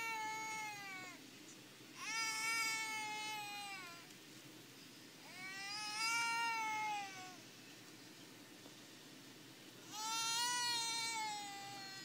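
An animal calling over and over: long drawn-out calls, each rising a little, holding, then falling in pitch. One fades out at the start, then three more follow about four seconds apart.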